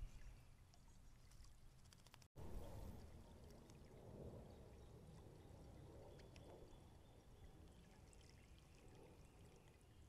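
Faint trickling and splashing of water from a small solar fountain in a bird bath, with a brief dropout about two seconds in where the footage cuts between clips.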